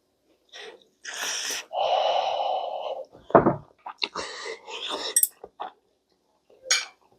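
A person slurping hot noodles in two noisy draws, the second one longer, then chewing with small clicking mouth sounds. A thump about a third of the way in is the loudest single sound.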